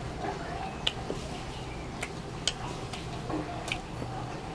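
Mouth sounds of a child chewing a bite of burger: soft wet smacks with a few sharp clicks of the lips and tongue, about four to five in all at uneven spacing.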